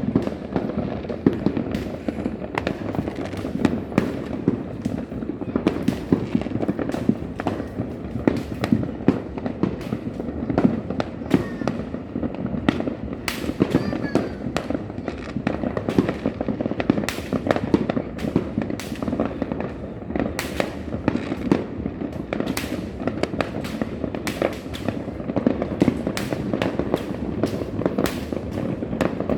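Many fireworks and firecrackers going off at once, a dense, unbroken mix of bangs, pops and crackle with sharp reports several times a second.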